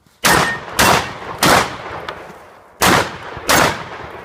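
Five shotgun shots: three in quick succession, a pause of just over a second, then two more, each tailing off briefly.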